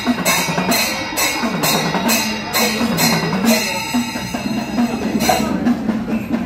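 Music with a steady drum beat, about two to three beats a second, over a low wavering melody.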